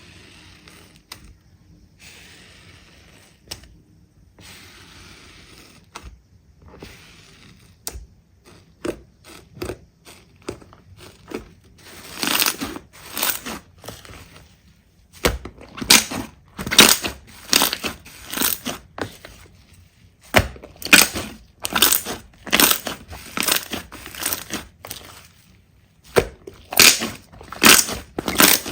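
Slime being squeezed and pressed by hand: a long series of short popping, squelching noises. They start faint and get much louder about twelve seconds in, then come in quick runs of about two a second.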